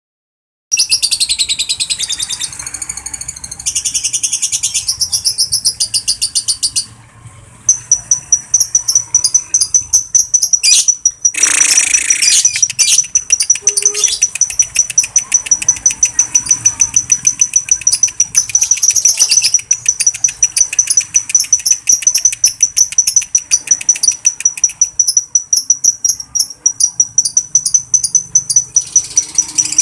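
Lovebird ngekek: a long, rapid chattering trill of sharp, high-pitched repeated notes, broken by a short pause about seven seconds in.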